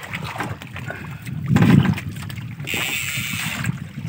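Sea water sloshing and splashing against the hull and outrigger of a small fishing boat, with a louder low thump about a second and a half in.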